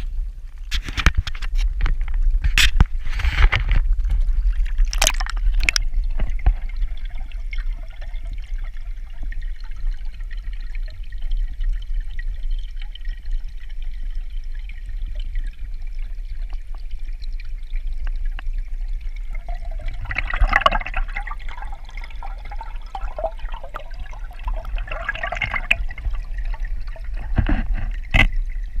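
Pond water splashing several times in the first few seconds as the camera breaks the surface. After that, a steady muffled underwater rumble heard through a GoPro's waterproof housing, with short bursts of louder water noise about two-thirds of the way through and near the end.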